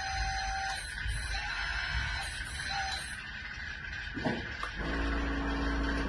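Hydraulic 1/12-scale CS11 road roller model running, with a steady high whine from its hydraulic system and shorter tones that come and go as the transmitter controls are worked. About four seconds in the pitch sweeps, and a lower steady hum with a heavier rumble takes over.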